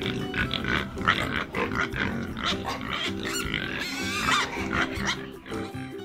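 Pigs grunting and squealing, with a higher, wavering squeal about four seconds in, over steady background music.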